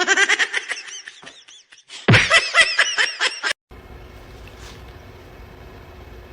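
A person laughing in two bouts of rapid giggles that stop abruptly, followed by a faint steady hum.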